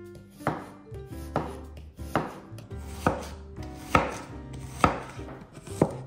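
Chef's knife slicing an onion into half rings on a wooden cutting board: seven even chops, a little under one a second, each blade stroke ending in a knock on the board.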